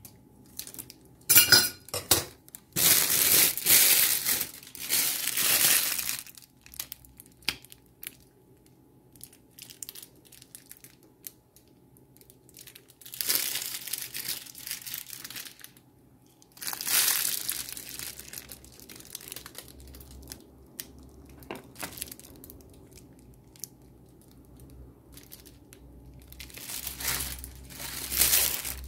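Thin plastic crinkling and rustling as plastic dessert cups and utensils are handled while cream is filled into the cups, in several separate bursts with quiet gaps between.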